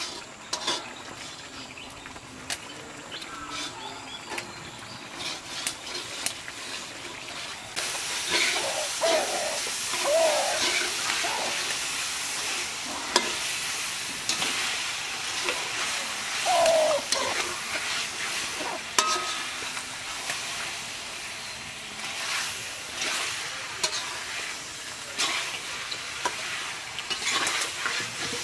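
Food frying in a pan while being stirred: clicks and scrapes of the spoon against the pan, and a sizzle that comes in loudly about eight seconds in.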